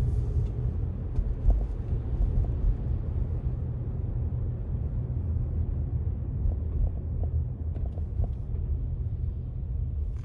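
Road traffic going by: a steady low rumble of vehicles, easing slightly near the end.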